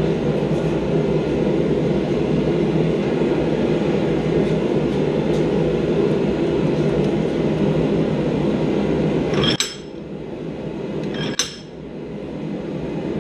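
Steady roar of a blacksmith's forge heating a steel bar. About ten seconds in it drops off abruptly with a sharp metallic clink, and a second clink of tongs on steel follows about two seconds later as the red-hot piece is brought back to the vise.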